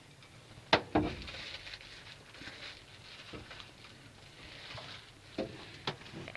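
Two pairs of sharp knocks, the louder pair about a second in and a weaker pair near the end, over a faint steady hiss.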